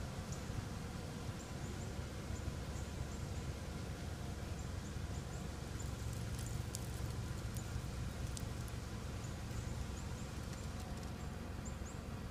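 Outdoor ambience: a steady low rumble with many faint, short, high chirps scattered throughout and a few faint clicks.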